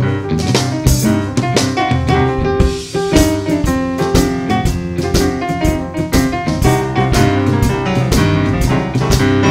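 Live blues-rock band playing an instrumental passage with no vocals: a keyboard carries the melody over a steady drum-kit beat and a heavy low end.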